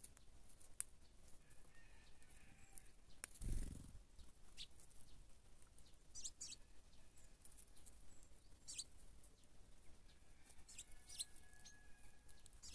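Faint outdoor scene of birds feeding on dried corn: scattered light ticks of beaks pecking at kernels, with Eurasian tree sparrows giving a few short high chirps. A brief dull thump about three and a half seconds in is the loudest sound.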